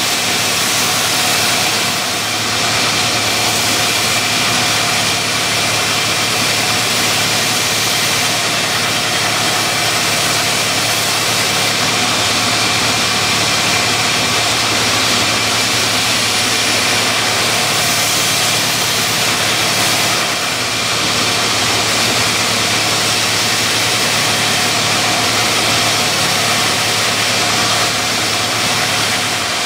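Belt grinder running, grinding a forged steel axe head on its abrasive belt: a steady whir and hiss, with a couple of brief dips in level.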